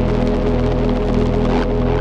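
Ambient electronic music: a steady droning chord of low held tones under a grainy, hissing noise layer.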